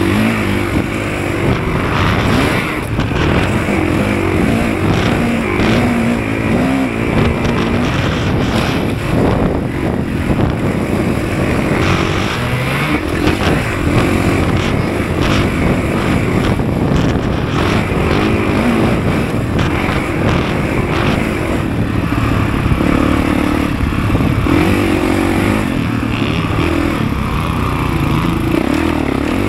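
Motocross dirt bike engine running hard as it is ridden, its pitch rising and falling as the throttle opens and closes, with knocks and clatter from the bike over rough ground.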